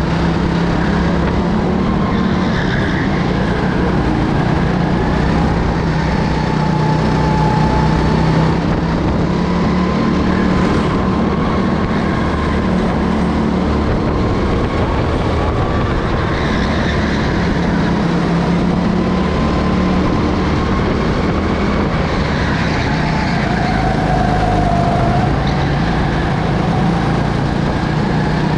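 Racing kart engine heard from the driver's seat, running hard and steadily, its pitch rising and dipping again and again with the throttle through the lap.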